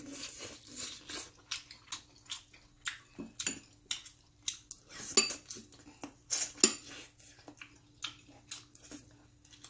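Stainless-steel chopsticks clicking and scraping against a ceramic rice bowl in irregular short clicks, with a man chewing food. The sharpest clicks come about five and six and a half seconds in.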